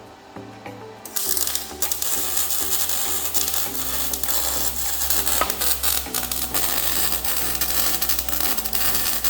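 Ratchet wrench clicking rapidly as it is worked, starting about a second in, with background music underneath.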